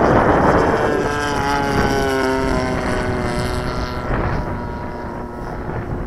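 Wind buffeting the microphone at first, then a radio-controlled model airplane's engine heard in flight from about a second in: a steady droning note that sags slightly in pitch and fades as the plane moves away.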